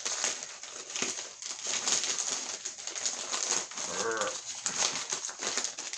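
Grey plastic courier mailer bag being pulled and torn open by hand: continuous crinkling and crackling of the plastic, with a brief voiced grunt about two-thirds of the way in.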